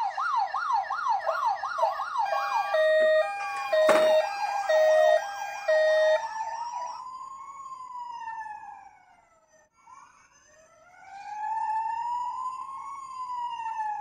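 Electronic siren sound modules in toy ambulances. A fast yelp siren is joined about three seconds in by a second siren's steady alternating two tones and a sharp click. Then a slow wail rises and falls twice.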